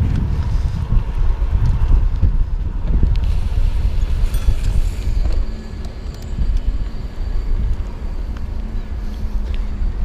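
Wind buffeting the microphone while riding a bicycle, a heavy low rumble that rises and falls.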